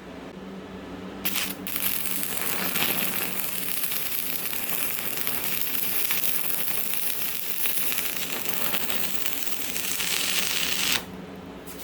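Stick (MMA) welding arc striking with a brief burst about a second in, then crackling steadily as it burns, cutting off suddenly near the end.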